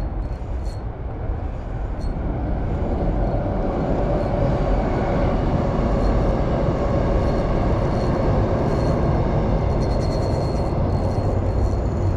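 Steady low rumble of road traffic on the bridge overhead, swelling slightly a few seconds in.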